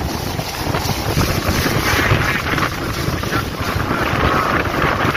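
Loud dust-storm wind gusting and buffeting the phone's microphone in a heavy, rumbling rush.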